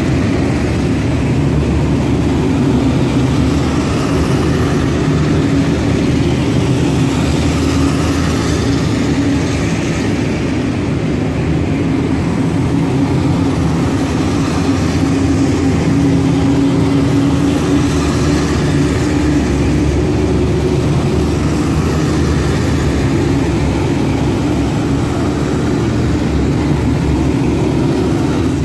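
Engines of eight-wheeled armoured personnel carriers driving past in a column: a loud, steady low drone that does not let up.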